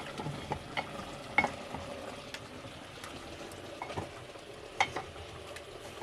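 Beef with onion and tomato sizzling in hot oil in a pot while being stirred, with several sharp knocks of the utensil against the pot.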